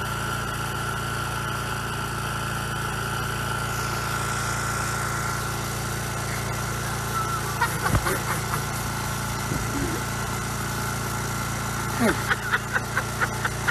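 An engine running steadily at idle, a constant hum with a steady whine above it.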